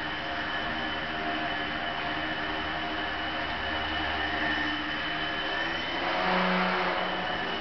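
Indoor RC foam biplane's electric motor and propeller whirring steadily with a high whine. It swells louder for about a second near the end.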